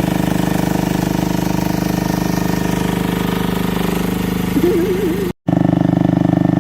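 UHI UME10P one-tonne mini excavator's engine running steadily. The sound drops out for a split second just past five seconds in, then the same engine note carries on.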